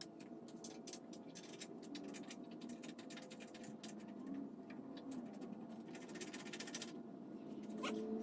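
Faint, irregular metallic clicking and scraping of bolts and a wrench as the bumper's mounting bolts are threaded in and run down by hand, over a low steady shop hum.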